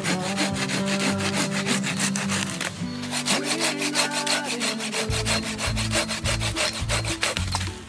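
A hand pruning saw cutting through a dead branch in rapid back-and-forth strokes, about five a second, with the teeth rasping through the wood. The sawing stops briefly about three seconds in, then starts again on a new cut.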